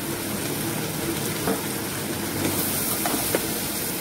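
Diced potatoes and onions sizzling steadily in hot oil in an aluminium pressure cooker, with a few faint taps.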